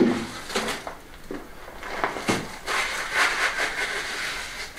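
Shovel scraping and scooping wet limecrete mix out of a wheelbarrow: a run of repeated gritty scrapes.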